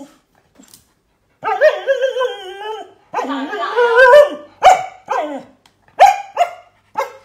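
Samoyed dog vocalizing: two long, wavering, whine-like calls, then a quick string of about five short barks.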